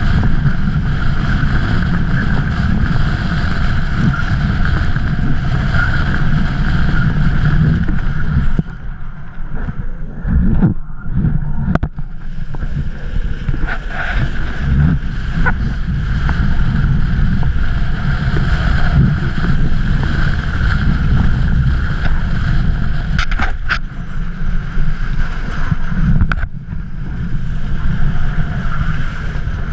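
Strong wind buffeting an action camera's microphone as a kiteboard rides across choppy water, a steady low rumble with a hiss above it. It drops off for a few seconds about nine seconds in and briefly again near twenty-six seconds.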